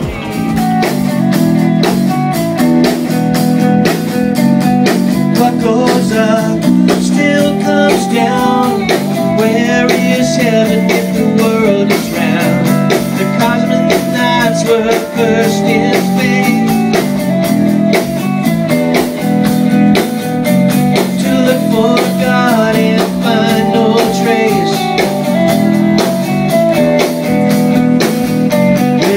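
A rock band playing live in a small room: electric guitar over a drum kit, with a sung vocal line.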